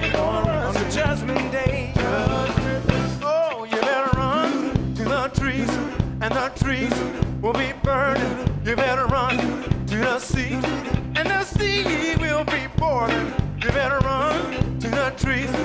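Live gospel-jazz band playing an upbeat, funky number: a steady drum beat and bass line under piano and guitar, with a lead melody line that wavers in pitch.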